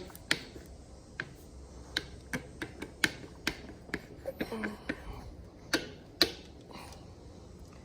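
Irregular sharp plastic clicks and taps, with a brief rubbing around the middle, as a bar-end part is pushed and twisted back into the end of a motorcycle handlebar.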